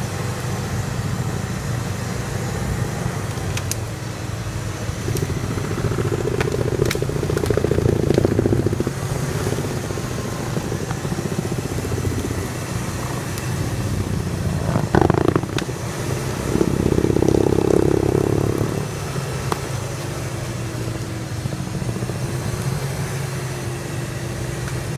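A Nissan Patrol 4x4's engine pulling hard up a steep slope of forest floor, rising in two longer surges of revs, about a third of the way in and again past the middle, as the tyres dig through leaf litter and soil. Scattered sharp cracks of twigs and branches snapping under the wheels, the loudest a little after the middle.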